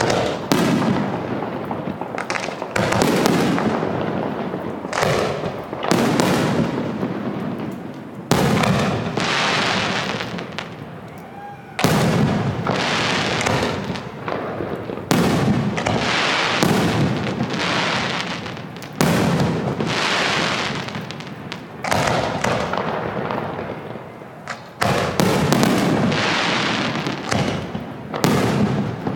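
Aerial firework shells bursting overhead in quick succession, about a dozen loud booms, each trailing off slowly before the next.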